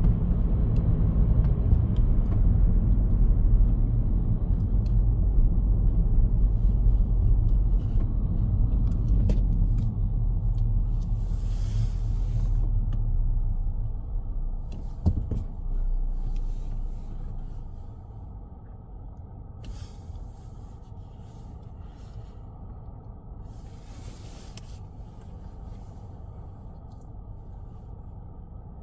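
Low, steady road rumble of a car on the move. About two-thirds of the way through it drops sharply to a much quieter hum.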